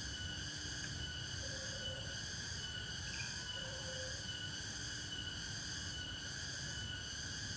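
Night insect chorus in a forest: several steady, layered high trills, with a low rumbling noise underneath. A short low call sounds twice, about a second and a half and near four seconds in.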